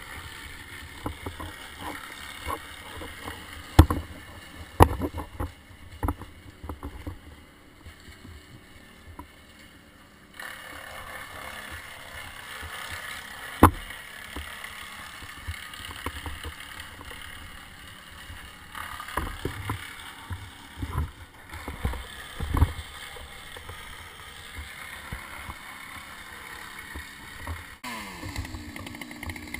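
Climbing gear and rope knocking and rustling against the bark as a climber moves up a tree trunk, with a few sharp thumps and wind on the microphone. Near the end a chainsaw engine is heard, its pitch falling as it settles.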